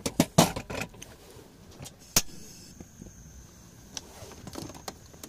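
Metal clunks of a stainless pressure cooker's lid being closed and locked onto the pot on a portable gas stove. About two seconds in comes a single sharp click, followed by a faint steady high hiss.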